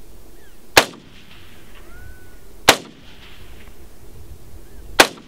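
Three rifle shots: the first about a second in, then two more about two seconds apart, each a sharp crack that dies away quickly.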